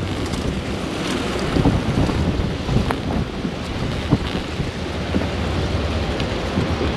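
Wind buffeting the microphone in a steady low rumble, with a few faint clicks from handling the rod and reel.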